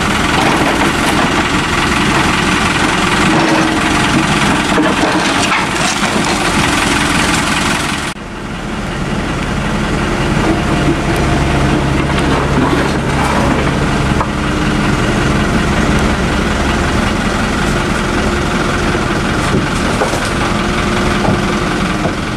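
Mini excavator's diesel engine running while it works the ditch; about eight seconds in the sound cuts to a steadier, duller engine hum with a few faint knocks.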